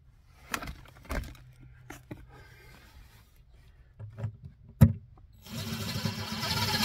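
A few light knocks and taps as a plastic pump mounting panel is handled against a wooden joist, then, about five and a half seconds in, a cordless drill starts driving a roofing screw, its sound building steadily.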